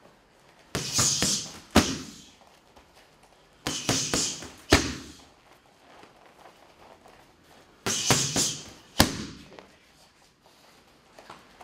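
Boxing gloves striking a trainer's punch mitts in three combinations a few seconds apart. Each is a quick run of hits followed about a second later by one sharp, loudest smack.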